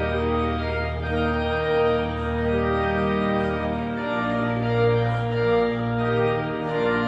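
Church organ playing slow sustained chords over a held bass note, the chord and bass shifting about four seconds in.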